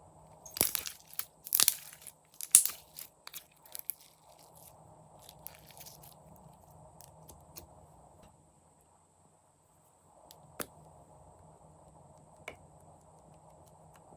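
Slime being worked by hand, giving a dense run of crackling pops for the first few seconds, then a few single pops.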